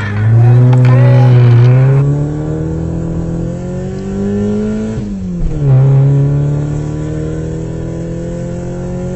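Vehicle engine accelerating, its pitch climbing steadily, dropping sharply about five seconds in, then climbing again. Loudest in the first two seconds.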